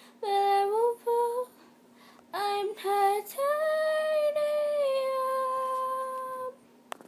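A girl singing unaccompanied: four short notes, then one long held note of about three seconds that steps down slightly partway through before ending. A short sharp click comes near the end.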